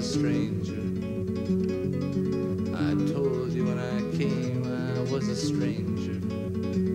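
Fingerpicked acoustic guitar playing a steady, rolling arpeggio pattern.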